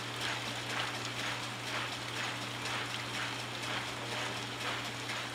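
Rainfall-simulator spray nozzles in a soil erosion lab spraying artificial rain: a steady hiss with a repeating mechanical clatter, over a steady low machine hum.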